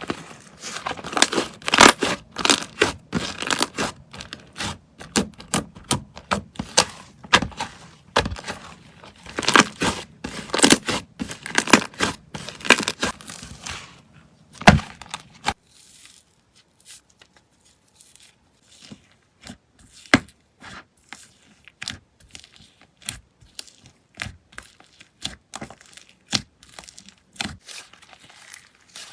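Slime being squeezed and stretched by hand, giving dense crackling and popping clicks for about the first half, then sparser, quieter crackles.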